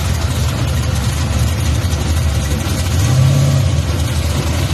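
Chevrolet Caprice convertible donk's engine idling steadily, with a brief rise in the engine sound about three seconds in.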